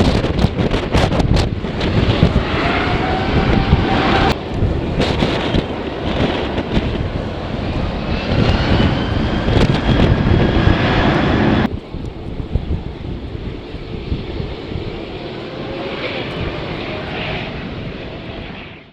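Jet airliner engines roaring with whines slowly rising in pitch, buffeted by strong wind on the microphone in the first few seconds. The level drops suddenly about two-thirds of the way through, and the sound fades out at the end.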